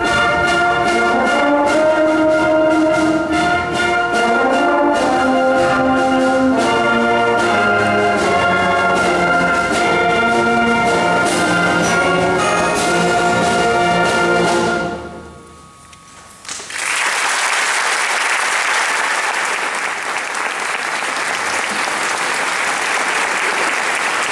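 School concert band of brass and woodwinds, French horns and saxophone among them, playing a piece to a held final chord that stops about fifteen seconds in. After a short pause the audience applauds.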